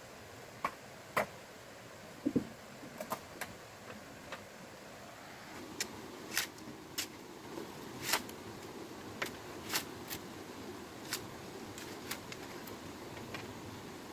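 Machete striking a bamboo pole while trimming it: sharp, irregular knocks, about one a second, over a steady low rushing background that comes up about halfway through.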